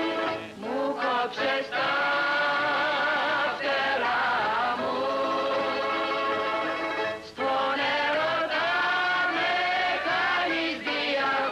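Greek bouzouki orchestra playing an instrumental passage of a slow zeibekiko, with short breaks between phrases.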